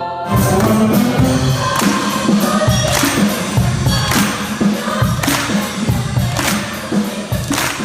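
Orchestra and choir performing, with a loud percussion hit about once a second; the music cuts in suddenly just after the start.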